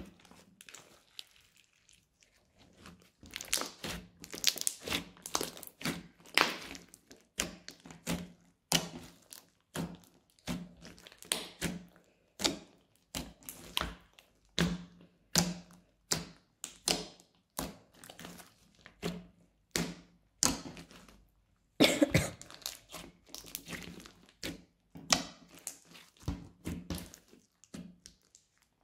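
Crunchy slime squeezed and pressed by hand, giving a quick run of sharp clicks and pops, a few a second, that begins a few seconds in.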